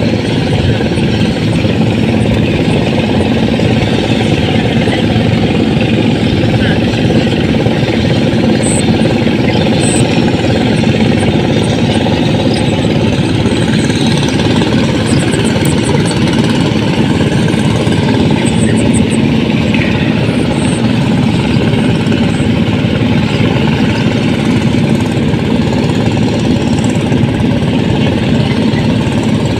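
A small engine running steadily, with an even hum throughout.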